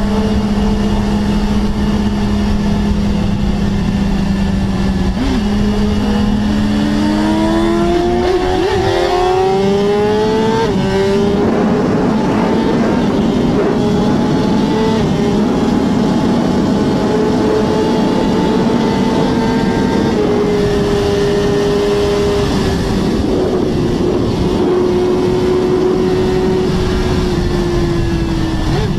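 BMW S1000RR's inline-four engine at high revs, heard from the rider's seat. It runs steady, then rises in pitch as the bike accelerates hard about eight to eleven seconds in. From there it holds at very high speed under heavy wind rush on the microphone.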